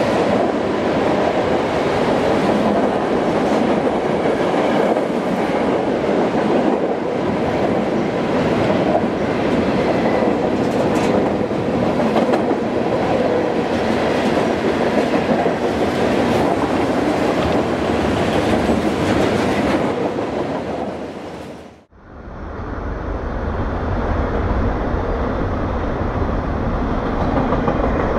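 Freight cars of a long mixed freight train rolling past at track speed: a steady noise of steel wheels on rails with faint repeated clicks. About three-quarters of the way through the sound drops out for a moment and returns duller and deeper, still the noise of passing freight cars.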